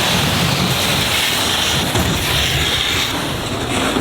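Plastic kayak sliding fast down a snowy hill: a steady, loud rushing hiss of the hull over snow, mixed with wind buffeting the microphone.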